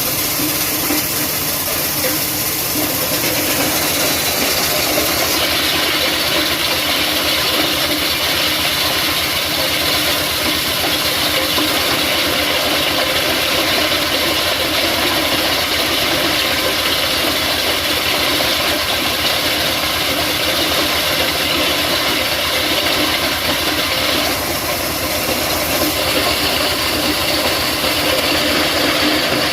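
Stone crusher machine running, crushing rock into sand: a loud, steady mechanical noise with a fast, even pulsing.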